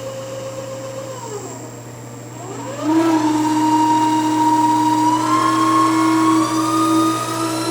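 Victor variable-speed milling machine's 3 hp inverter-driven spindle motor running in back gear over a steady low hum. Its whine drops away about a second in, then rises sharply and gets louder about three seconds in as the speed is turned up, climbing slowly from there. The low-speed vibration in back gear is put down to the motor.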